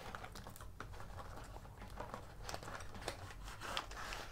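Small cardboard box being opened by hand: faint, irregular scraping and clicking of the cardboard flaps, with light rustling as the plastic-bagged contents slide out.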